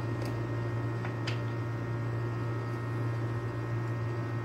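Steady low electrical mains hum, with a few faint light clicks about a second in.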